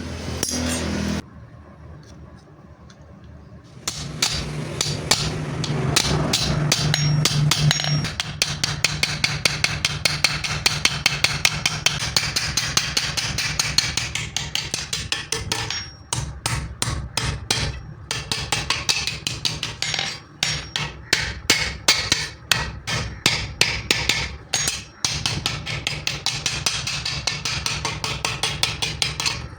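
Hammer blows on spring steel being forged into a sickle blade: a quick, steady run of sharp metal strikes, several a second, with a few brief pauses. The strikes start after a short lull.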